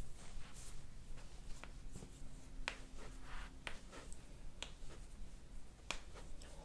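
Faint rustling and a handful of short, soft clicks as hands grip and adjust a patient's feet and ankles on a padded chiropractic table.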